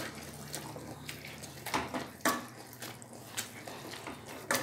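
Metal potato masher working boiled grated potato in water in a kadai: wet sloshing and squelching, with irregular clinks of the masher against the pan.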